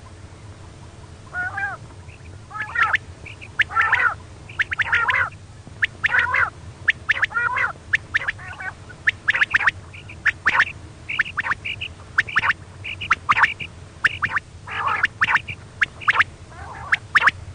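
Female common quail (bater) calling: a series of short, scratchy notes given in quick clusters, starting about a second and a half in and repeating irregularly, over a steady low hum. This is the call used to lure quail when hunting.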